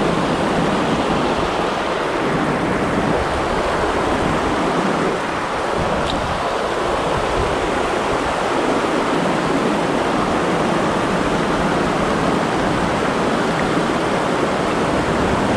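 Spillway rapids: shallow river water rushing steadily over rocks.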